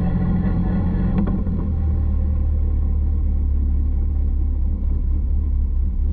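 Caterham 620R's supercharged 2.0-litre four-cylinder engine running at steady low revs, heard from the open cockpit as the car rolls slowly. There is a faint click about a second in.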